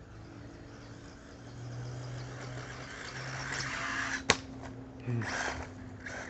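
Losi Mini-T 2.0 Brushless, a 1/18-scale electric RC truck, driving over backyard dirt, with swelling bursts of motor and tyre noise as it speeds up. A single sharp knock comes a little past four seconds in and is the loudest sound.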